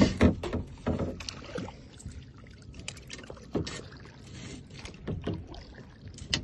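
Kayak paddle strokes: a double-bladed paddle dipping and pulling through calm water, in irregular strokes with sharp splashes and knocks, thickest in the first second.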